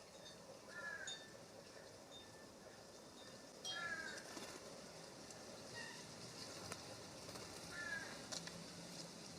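Short downslurred bird calls, given singly about a second in, several in quick succession near four seconds in, and again near the end, over a faint steady background hiss.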